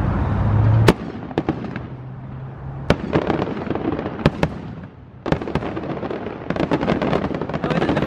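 Disneyland's nightly aerial fireworks show going off: a sharp bang about a second in, then single booms every second or so, then a fast run of crackling near the end.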